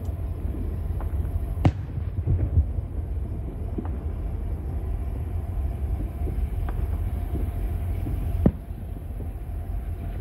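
Distant fireworks going off: a few sharp bangs, the loudest about two seconds in and another near the end, with fainter pops between. Underneath is the steady low rumble of a passing train.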